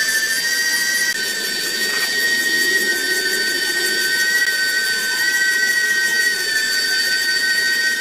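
Small DC toy motors driving a model rubber conveyor belt, running with a steady high-pitched whine in two close pitches.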